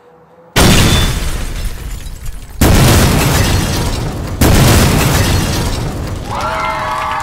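Three loud explosion booms, about two seconds apart, each starting suddenly and trailing off in a long rumble. Several held tones come in near the end.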